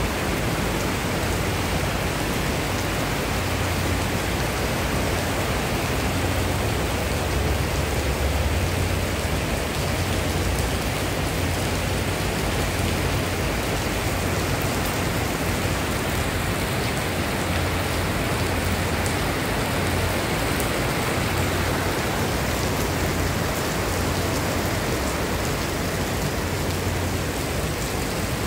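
Heavy rain falling steadily on paving and grass, a continuous even hiss with an uneven low rumble underneath.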